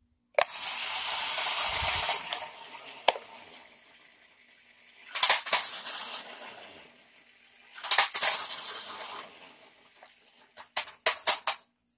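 Sharper Image Thunder Tumbler remote-control stunt car spinning on one wheel on a concrete floor, its motors whirring and its plastic wheels and body scraping and rattling. The sound comes in three bursts of a second or two each, with a few sharp clicks near the end.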